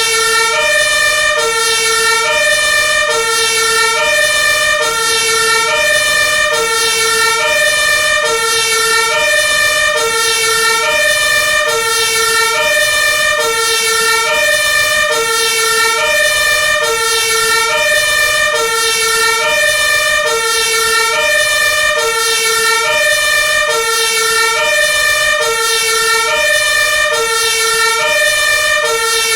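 Two-tone hi-lo siren of an Iveco Magirus Eurocargo 160E30 aerial ladder fire truck, sounding steadily and loudly. It alternates evenly between a low and a high pitch, about one low-high cycle every 1.3 seconds.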